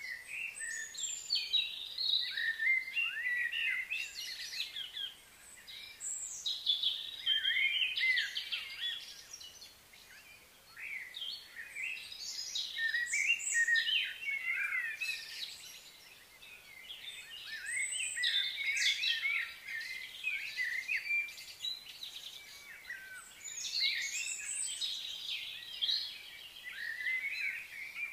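Birds chirping and twittering, many high overlapping calls coming in bursts that swell and fade every few seconds.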